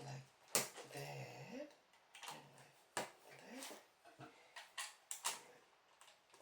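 Plastic LEGO pieces clicking and clattering as they are picked out and fitted, a few sharp clicks spread through, with short low hums or murmurs from a man in between.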